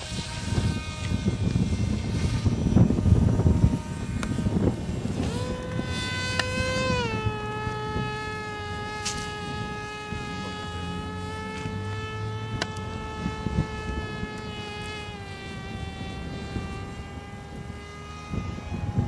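Ultrafly Outrage 3D model biplane's motor and propeller in flight, a steady high whine. It comes in about five seconds in, rises briefly, then drops a little and holds steady. Low wind rumble on the microphone before it.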